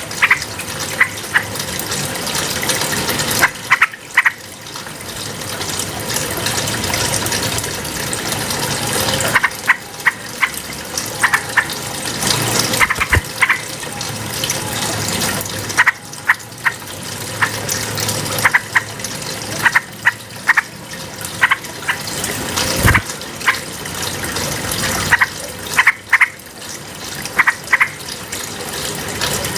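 Yellow-vented bulbul (trucukan) calling in short clusters of quick chirping notes every few seconds, over a steady rush of running water.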